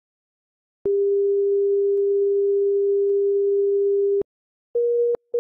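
Synthetic telephone ringing tone: one long steady pure tone of about three and a half seconds, then after a short gap two short beeps a little higher in pitch.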